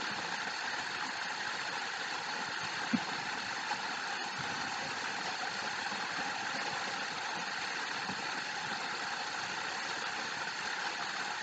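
Steady, even background hiss with no speech, broken by a short tap about three seconds in.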